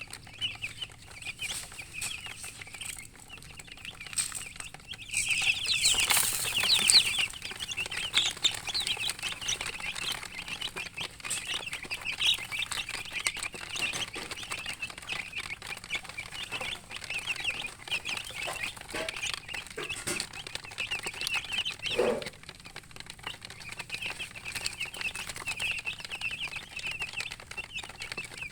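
A brood of baby chicks peeping continuously in many short, high chirps. A louder noisy burst comes about six seconds in, and a single lower-pitched call about 22 seconds in.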